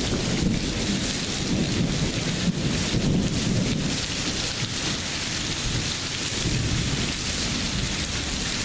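Heavy rain pouring steadily during a thunderstorm, with thunder rumbling low underneath.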